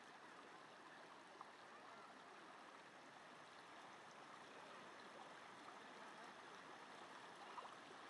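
Faint, steady rush of water spilling from a drainpipe over ice-coated rocks into a shallow stream.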